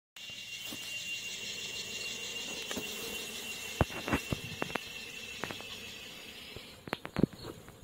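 Cicada's steady high-pitched drone, fading out near the end, with a few sharp knocks and taps about four seconds in and again near the end.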